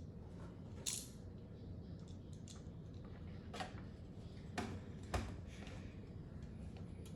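Small hard clicks and light scrapes of metal and plastic computer parts being handled, a handful of irregularly spaced sharp ticks with the loudest about five seconds in, over a low steady hum. These are likely the screwdriver and screws at work while a tower CPU cooler is mounted.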